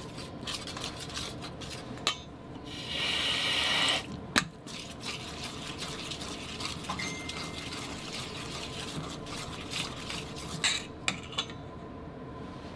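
A spoon stirring flour batter in a stainless steel bowl, with small clinks and scrapes against the metal. Tap water runs into the bowl, loudest as a rush for about a second around three seconds in.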